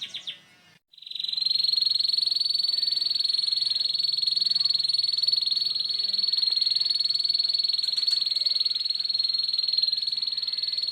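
Canary singing the harsh, rapid 'ngeriwik' trill: a few quick separate notes, a short pause about a second in, then one long, unbroken high rolling trill.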